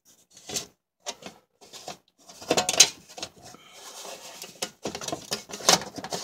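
A plastic under-engine splash shield being handled and fitted back under the car: irregular knocks, scrapes and rustles, loudest a little past the middle and again near the end.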